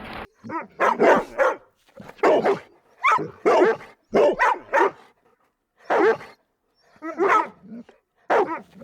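A dog barking repeatedly: short barks in quick runs, about a dozen in all, with a couple of brief pauses.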